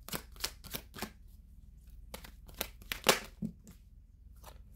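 A deck of tarot cards being shuffled, clicking about three times a second, then a few separate snaps and taps as cards are pulled and laid down, the loudest a little past the middle.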